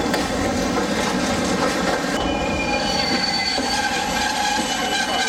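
Passenger train running on the rails, with a steady rumbling noise. About two seconds in, several high steady squealing tones join in, the screech of steel wheels on the rails.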